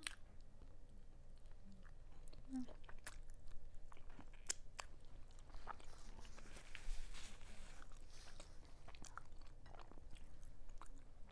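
Close-up chewing and biting into a gold-dusted chicken drumstick: scattered small wet clicks and crunches of the meat being chewed.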